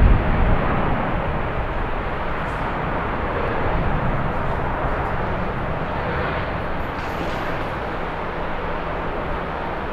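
Steady engine noise of a jet airliner passing on the runway, mixed with strong wind buffeting the microphone, heaviest in the first second.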